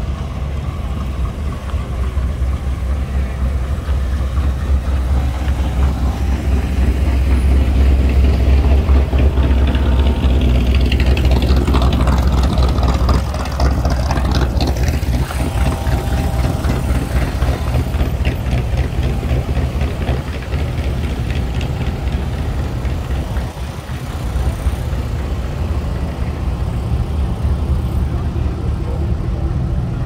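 Several hot rod and classic car engines idling and rumbling as the cars roll slowly by. The rumble is loudest about a third of the way in.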